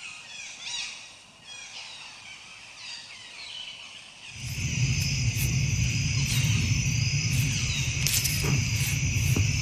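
Outdoor nature ambience: faint scattered bird chirps, then about four seconds in a steady, loud insect chorus starts up over a low hum, with a few sharp clicks.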